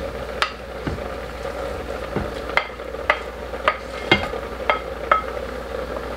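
A wooden spoon scraping and tapping against a ceramic plate as paneer cubes are pushed off it into a pan of thick masala sauce. About ten sharp clinks come at uneven intervals over a steady low hum.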